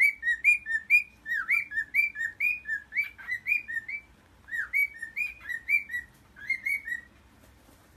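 Cockatiel chirping: a rapid run of short, high chirps that rise and fall, about three or four a second, with a brief pause around the middle. The chirping stops about a second before the end.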